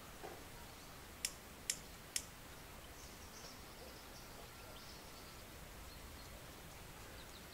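Quiet outdoor ambience with three sharp clicks about half a second apart a little over a second in, followed by faint high bird chirps.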